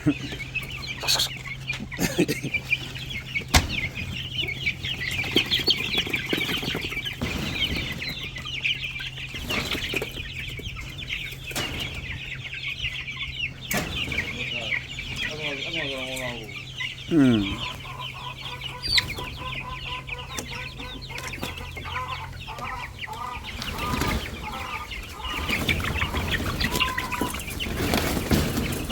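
A flock of young black Australorp chicks peeping continuously, many high calls overlapping, with occasional knocks. A steady low hum runs underneath and stops near the end.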